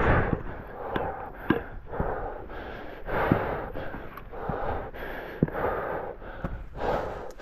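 A climber's hard breathing, in and out about once a second, with scattered sharp clicks and knocks.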